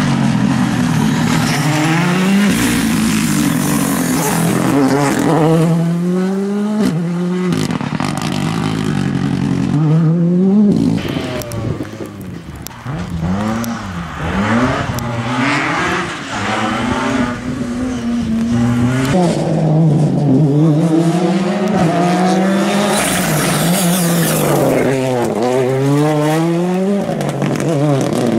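Rally cars driven flat out, engines revving hard in repeated rising sweeps that drop back at each gear change and as they brake for corners. Around the middle one car, a BMW M3 E36, goes quieter into a hairpin and then revs away.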